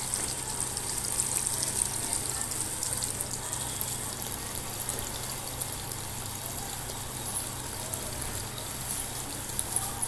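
Small decorative tabletop water fountain running: water spilling steadily from the top tier and trickling and splashing into the basin, over a low steady hum.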